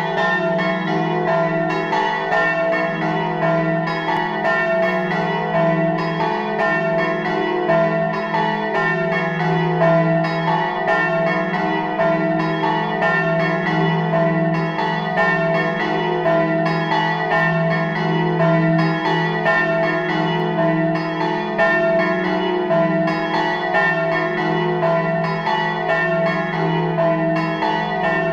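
Church bells in a stone bell tower ringing a continuous, rapid peal: strokes follow each other closely and overlap their ringing, with no pause.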